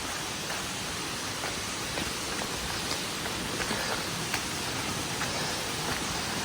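Steady hiss of heavy rain, with a few faint scattered taps.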